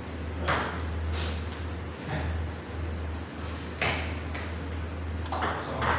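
Sharp, separate clicks of a table tennis ball bouncing while the players get ready, then quicker clicks of ball on bat and table near the end as a rally starts. A steady low hum runs underneath.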